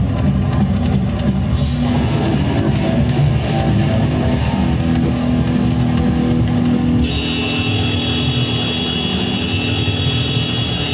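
Loud rock music: electric guitar over a drum kit, with a dense, steady low rumble underneath. About seven seconds in, a cluster of high, steady ringing tones comes in.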